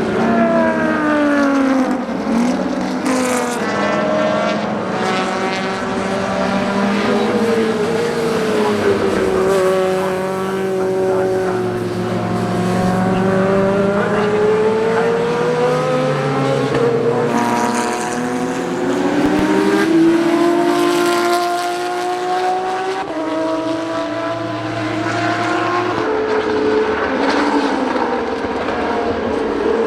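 Historic racing car engines at high revs, several cars in turn, their notes rising through the gears and dropping as they shift and pass.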